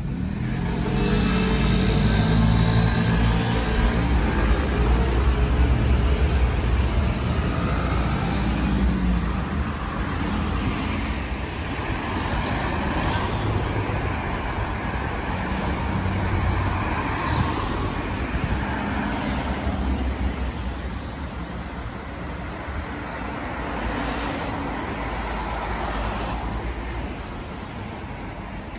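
City street traffic: motor vehicles driving past, with an engine's low rumble loudest over the first few seconds, then steadier, slightly quieter traffic noise.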